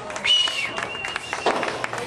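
Scattered clapping from a small crowd of spectators, with a high-pitched call or cheer held briefly about a third of a second in.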